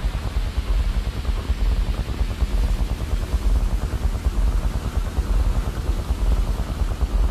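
Experimental electronic noise drone: a dense, steady wash of hiss over a heavy, rapidly fluttering low rumble, with no clear notes or beat.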